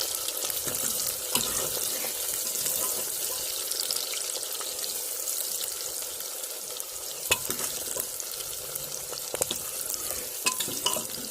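Chopped onions and green chillies sizzling steadily in hot mustard oil in a pressure cooker as they fry toward brown, with a few sharp clicks of a spoon against the pot near the end.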